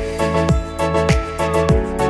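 Background music with a steady beat: a low kick drum about every half second under held, even notes.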